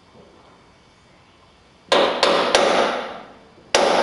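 Hammer striking a center punch against the steel side of a pickup bed, marking a hole for drilling: three quick strikes about two seconds in, then a fourth a second later, each ringing briefly.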